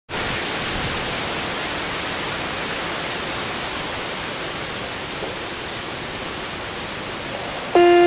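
A steady, even rushing noise, then just before the end a loud, steady pitched tone of the HOR Super Sirex siren cuts in suddenly at full strength.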